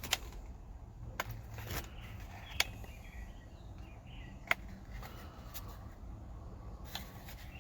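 A handful of sharp, separate clicks and taps over a low background hum: a plastic cordless tire inflator being handled and its buttons pressed.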